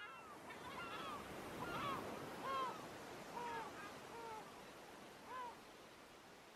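Gulls giving a string of short, arched cries, faint over a soft steady hiss of wind and sea, dying away near the end.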